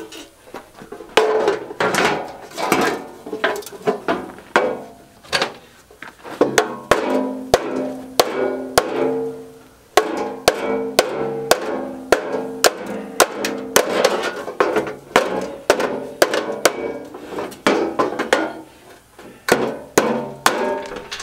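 Hammer blows on the metal of a clothes dryer's blower assembly, a steady run of sharp strikes about two a second, many with a short metallic ring.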